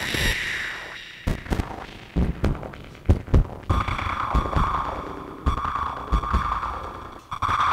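Handling noise from a Zoom H1 recorder in a furry windscreen, run through a Make Noise Strega synthesizer and ring-modulated: irregular thumps and rubbing, then a pitched electronic ringing tone that swells in about halfway through and fades, coming back near the end.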